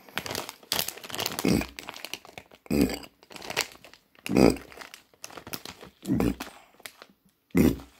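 Plastic film wrapper of a Nongshim Shin Ramyun instant noodle packet crinkling as a hand squeezes and turns it, in about six separate bursts.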